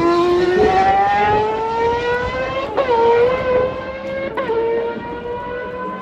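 1990s Formula 1 car's engine revving hard as it accelerates, its pitch climbing steadily and then dropping sharply at two upshifts, about three and four and a half seconds in. The note grows fainter as the car pulls away.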